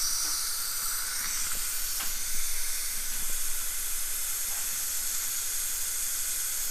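Steady high-pitched hiss of dental suction, with a few faint instrument clicks.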